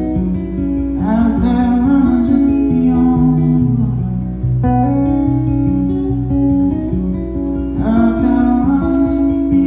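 Acoustic guitar playing an instrumental passage of a folk song, a stepping bass line under ringing chords. A higher melodic line comes in about a second in and again near the end.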